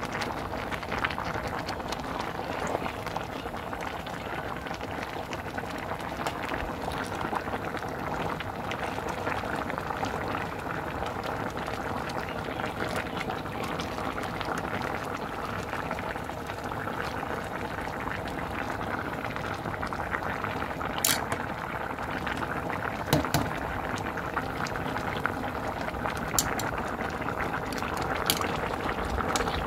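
Pot of thick spicy stew boiling hard, a steady bubbling, with a few sharp clicks in the second half.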